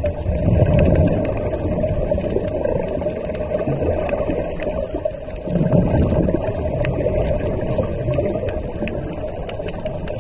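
Muffled underwater sound of moving water, with two louder gurgling swells about five seconds apart and faint scattered clicks.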